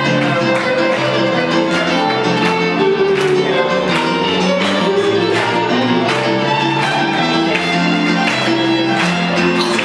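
Live band music: a violin playing over a keyboard's backing with a steady drum beat.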